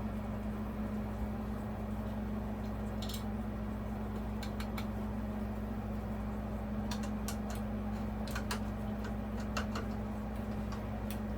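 Scattered light clicks and taps of ceiling fan parts and hardware being handled during blade installation, over a steady low hum.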